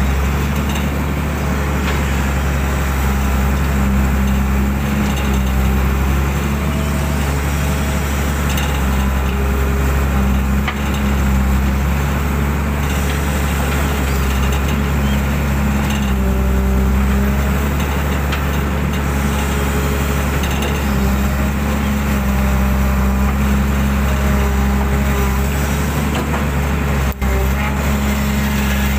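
Hydraulic excavator's diesel engine running steadily, heard from the cab, with a whine that comes and goes as the arm and bucket move through the mud of a drain.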